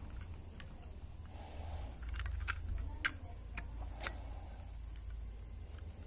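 Irregular small metallic clicks and taps as a Zippo butane lighter insert is handled and fitted into the Zippo's metal case, the sharpest click about three seconds in.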